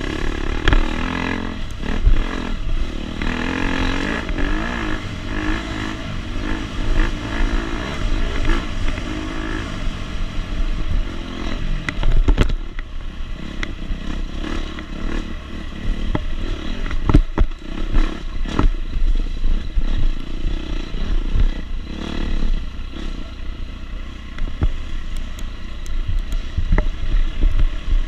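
A 250 SX dirt bike's engine revving up and down under racing throttle, with clatter and several sharp knocks from the bike over rough ground.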